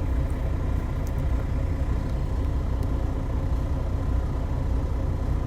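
Heavy truck diesel engine idling with a steady low rumble.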